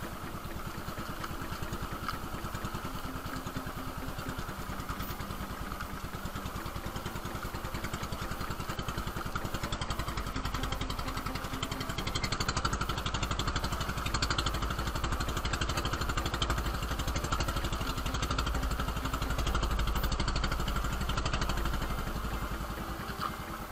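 Outrigger boat's engine running steadily with a fast, even putter, getting a little louder about halfway through and easing off near the end.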